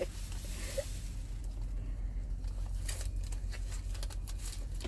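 Rustling and short clicks of a zippered wallet and paper money being handled, over a steady low hum in the truck cab.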